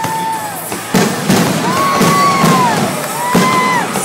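Fireworks display: several sharp bangs of shells going off, with whistling tones that glide up and then down in pitch.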